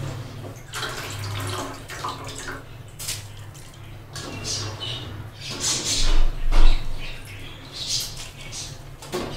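Water splashing in irregular spurts over a steady low hum, loudest about six seconds in.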